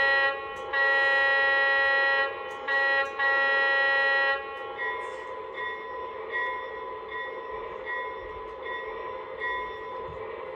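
O gauge model diesel locomotive's onboard sound system sounding its horn in four blasts, short, long, short, long, then ringing its bell with a steady pulse a little faster than once a second.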